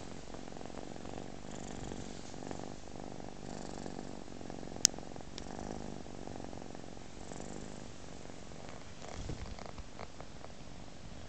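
British Shorthair kitten purring steadily while asleep, with a single sharp click about five seconds in and a few soft knocks near the end.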